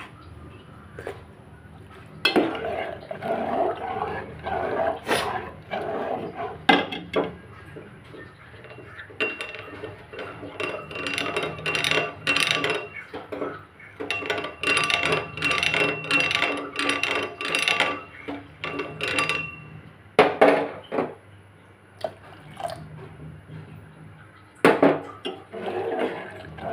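Metal spoon stirring and scraping in an aluminium pot of milk and vermicelli, with repeated clinks and scrapes against the pot's sides and bottom.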